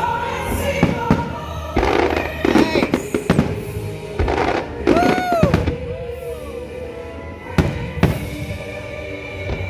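Fireworks going off, a string of sharp bangs and crackles, with a whistle that rises and falls about five seconds in. Music plays underneath.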